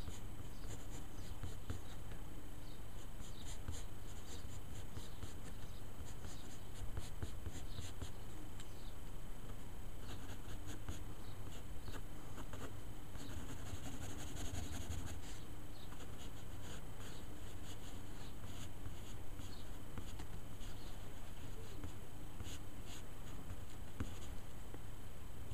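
Graphite pencil scratching on paper in many short sketching and shading strokes, busiest around the middle, over a steady low hum.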